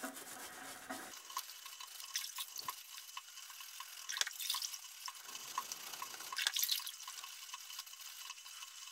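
Water splashing and dripping as a metal brake caliper is dipped in a bucket of cold water and scrubbed with a brush, with scattered small clicks and a few louder splashes.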